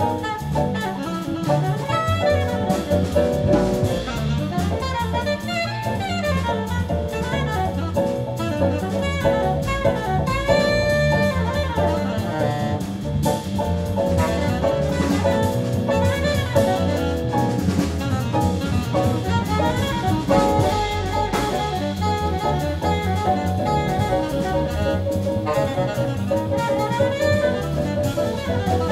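Live jazz-fusion quintet playing: saxophone over piano, double bass and drum kit, with steady drumming throughout.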